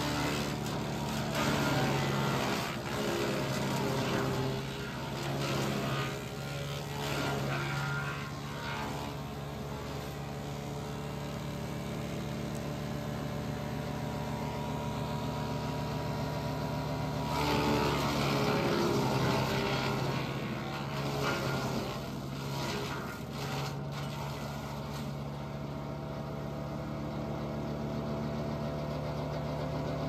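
Wood chipper's engine running steadily. Twice it is loaded with branches being fed through and chipped: once for the first several seconds, and again for a few seconds past the halfway point.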